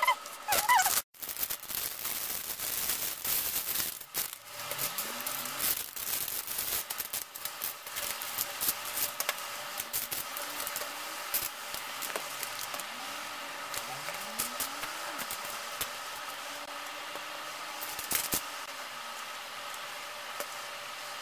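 Plastic Lego bricks clicking and rattling in quick, irregular taps as pieces are picked through and pressed together, over a faint steady hum.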